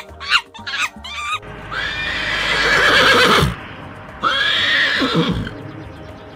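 Horse whinnying twice: a long neigh falling in pitch, then a shorter one about a second later. It is preceded by a quick run of short high chirping calls in the first second and a half.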